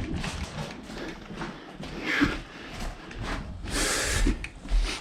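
Footsteps on the ground with gear rustling as an airsoft player moves up: irregular scuffs and soft thuds, with a brief hissing rustle about four seconds in.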